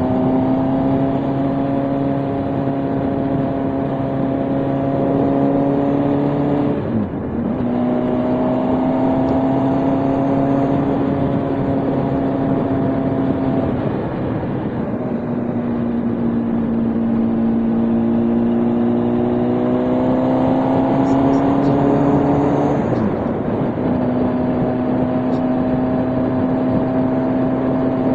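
Motorcycle engine pulling along at road speed, its note slowly climbing, then dipping and dropping in pitch at gear changes about 7 seconds in and again near 23 seconds, over a steady rush of wind.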